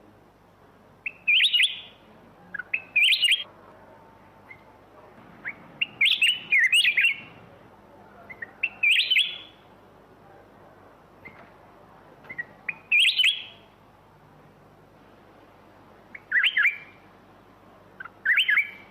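Black-crested bulbul singing: short, quick warbled phrases, about eight of them, each under a second and repeated every two to three seconds.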